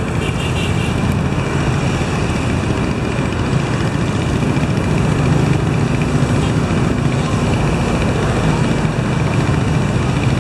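Small fishing boat's engine running steadily: a loud, low, even hum with no change in pace.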